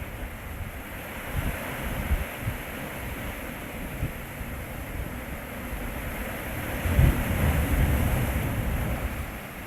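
Sea waves washing on the shore, with wind buffeting the microphone; a louder surge of surf comes about seven seconds in and fades toward the end.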